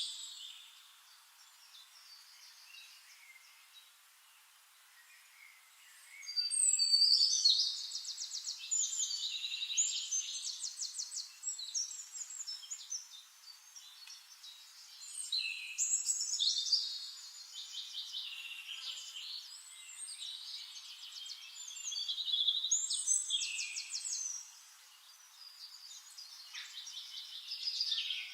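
Songbirds singing long, rapid trilled phrases, one every several seconds, after a quiet stretch at the start.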